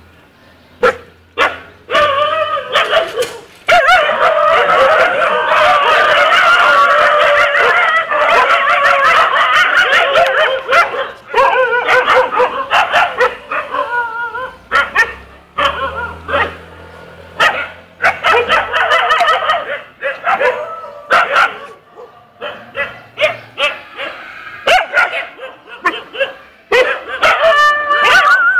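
Several stray dogs barking in a near-continuous racket. The barking thins to scattered short barks for a few seconds and rises again near the end.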